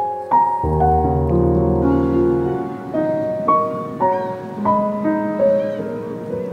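Piano music: single notes and chords struck one after another, about two a second, over a deep bass note held for about two seconds near the start.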